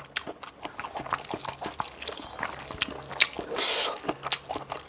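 Close-up wet chewing and mouth clicks of a person eating pork with bamboo shoot curry, with a brief louder noisy sound about three and a half seconds in.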